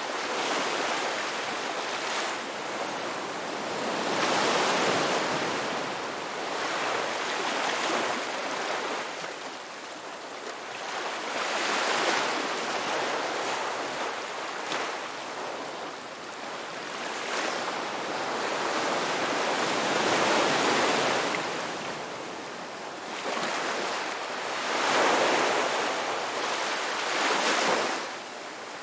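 Ocean waves breaking and washing up the beach, the surf hiss swelling and fading again every three to five seconds.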